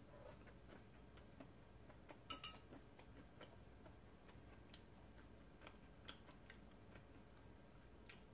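Near silence with faint, scattered small clicks, the loudest cluster about two seconds in: quiet mouth sounds of chewing soft bread.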